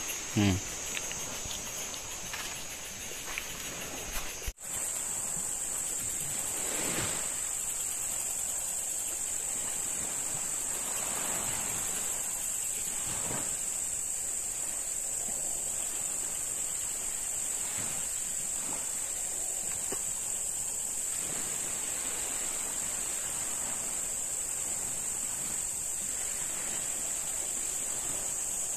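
Insects chirring in a continuous high-pitched drone. There is an abrupt cut about four and a half seconds in, after which the drone is louder and even.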